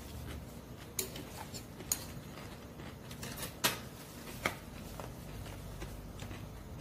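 Metal spoon and chopsticks clicking and scraping against a plastic takeout tray and being set down on a table: a handful of short sharp clicks, the loudest about three and a half seconds in.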